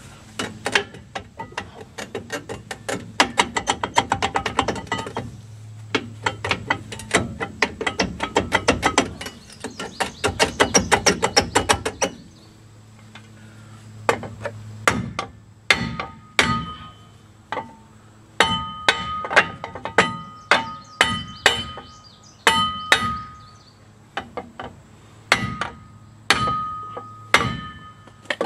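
Rear brake drum on a pickup rattling and clattering in quick runs as it is rocked back and forth over the brake shoes. From about halfway, hammer blows strike the drum through a block, roughly two a second in groups, each one leaving the cast-iron drum ringing. The drum is stuck on the lip that the worn shoes have cut in it.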